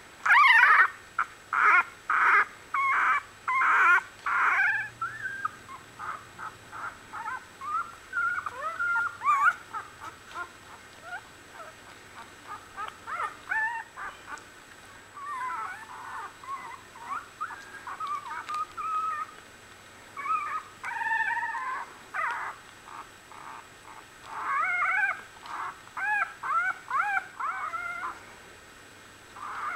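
One-week-old Australian Bulldog puppies crying in short, high, repeated squeaks and whimpers. The loudest run of cries comes in the first few seconds, with louder bouts again about two-thirds of the way through.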